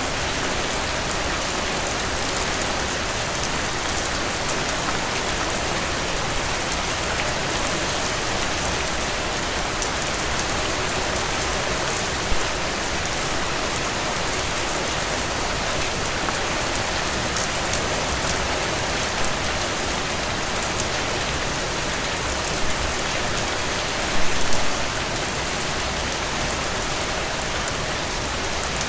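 Steady rainfall pattering on surfaces, with a few louder drops or splashes, the biggest cluster about two thirds of the way through.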